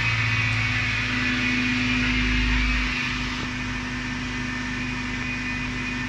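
Suzuki Cultus three-cylinder engine idling steadily after a cold morning start, its raised cold-start idle slowly coming down as the engine warms up.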